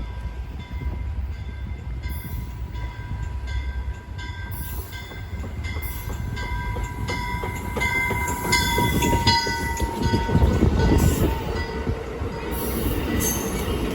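A train passing close by: a low rumble that builds to its loudest about eight to eleven seconds in, with steady high-pitched ringing tones and a rapid run of clicks over it.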